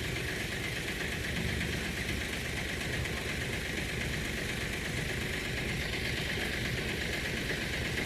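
Heavy equipment engine running steadily at an even speed, with a low rumble and a steady higher whine over it.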